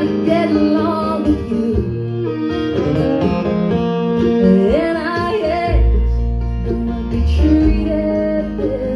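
Live bluegrass string band playing, with acoustic guitar and upright bass under a bending lead melody line. The upright bass notes get much heavier about six seconds in.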